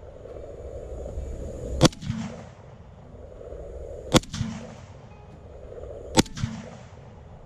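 M1 Garand rifle in .30-06 firing three shots about two seconds apart. Each shot is followed a moment later by a fainter second report.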